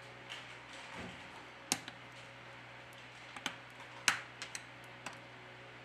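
The mainboard cover of an LG K51s being pressed down by fingertips, giving a handful of sharp clicks as it snaps into the frame, the loudest about four seconds in. A steady low hum runs underneath.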